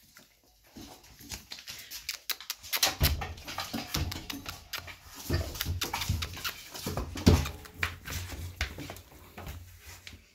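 A dog making small vocal sounds while being rubbed, mixed with rustling, clicks and low bumps of handling close to the microphone, starting about three seconds in and fading near the end.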